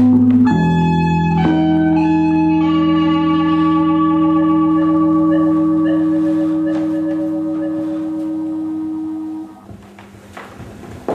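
Music of long held organ-like chords over a steady low drone, with new notes coming in during the first few seconds. The music fades out about two-thirds of the way through, and a single knock follows near the end.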